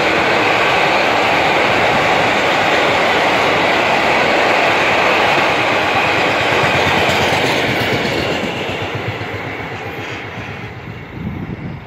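Freight train of hopper wagons rolling past, its steel wheels running over the rails with a steady rumble and clatter. The noise fades away after about eight seconds as the last wagon passes.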